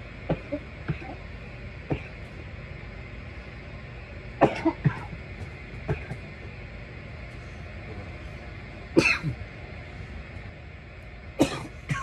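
A man coughing from bong smoke: a few short coughs at the start, then louder, harsher fits of two or three coughs each near the middle and near the end, over a steady low background hum.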